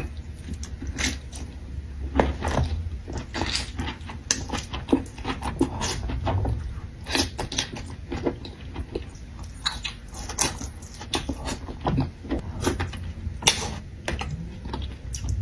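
Close-miked eating of a seafood boil: wet chewing and smacking with frequent short, sharp clicks and crunches, over a steady low hum.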